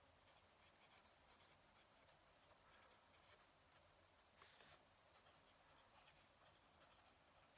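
Fountain pen nib scratching faintly across paper in short, irregular strokes, with a brief louder rub about four and a half seconds in.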